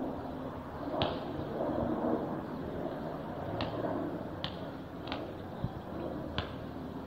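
Distant low rumble of a UH-60 Black Hawk helicopter's rotors and twin turboshaft engines flying over at about 1,400 ft, with several short sharp high ticks over it.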